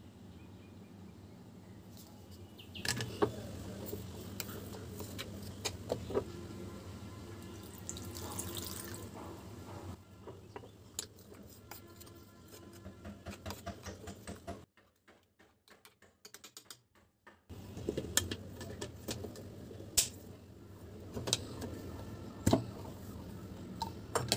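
Water being poured into a steel mixer-grinder jar of crushed seeds and spices, with a plastic spoon stirring, scraping and tapping against the metal in short sharp clicks.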